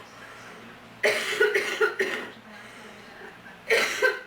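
A person with a cold coughing, trying to cough something up: a fit of several coughs about a second in, then another hard cough near the end.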